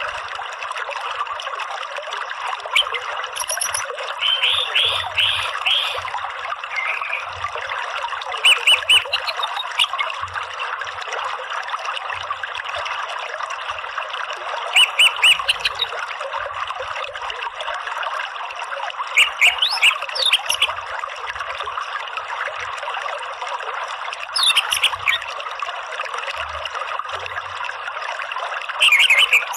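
Orange-headed thrush giving short groups of quick, high chirping notes every few seconds, over the steady sound of a flowing stream.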